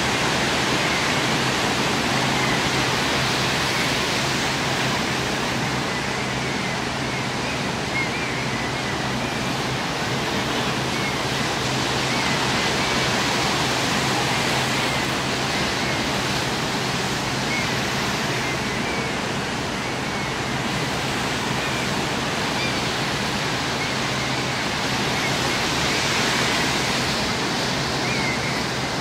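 Steady rushing of ocean surf, swelling gently now and then, with a few faint high chirps.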